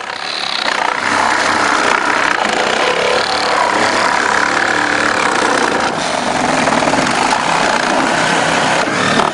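Battery-powered reciprocating saw running loudly as it cuts through a car's roof pillar, stopping abruptly near the end.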